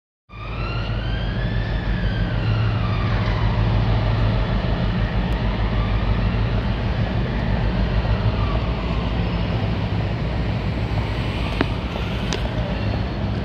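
Class 60 diesel locomotive's engine running under load as it pulls a freight train away, a steady deep drone, with fainter high whining tones that rise and fall over it and a couple of sharp clicks near the end.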